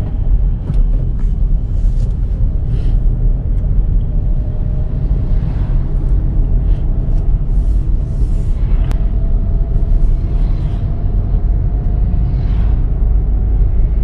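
Volkswagen Virtus GT on the move, with a steady, heavy low rumble of engine and road noise and a faint tone that slowly rises in pitch through the middle as the car picks up speed. A few light clicks and ticks come through the rumble.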